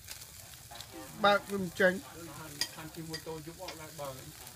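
Beef and vegetables sizzling on a wire grill over hot charcoal, with a steady hiss and a few sharp pops. Voices are heard in the background, loudest in two short calls a little over a second in.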